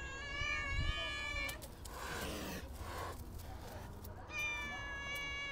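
Cat giving two long, high-pitched meows, with a brief noise between them.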